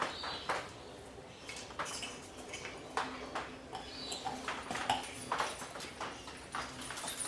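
Irregular clicks, clatters and knocks, a few each second, over a faint steady hum.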